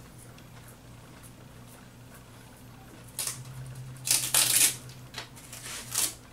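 Masking tape being peeled off a steel table frame in several short noisy pulls, the longest and loudest about four seconds in, as a paint stencil is lifted away. A faint steady hum underneath.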